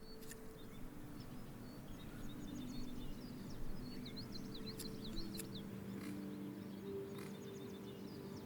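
Small birds chirping in quick runs of short high notes, over faint soft music with held low notes that step in pitch. A few light clicks sound now and then.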